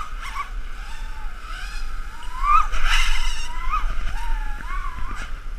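Small multirotor's SunnySky 2205 2300KV brushless motors on a 4-cell battery, whining in flight. The pitch swoops up and down as the throttle is worked, with the sharpest climb about two and a half to three seconds in.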